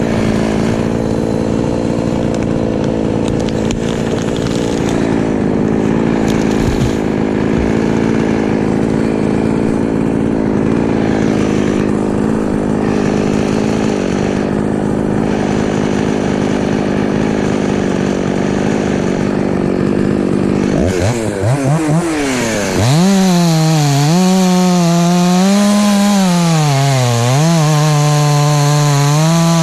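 Husqvarna 254 two-stroke chainsaw and machinery running steadily. About 21 seconds in, the saw revs up to full throttle and runs loud, its pitch dipping and rising again and again as it cuts under load.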